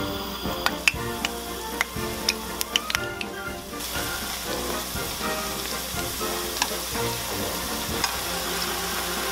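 Churros frying in shallow oil in a small frying pan: a steady sizzle, with sharp pops and crackles through the first three seconds or so.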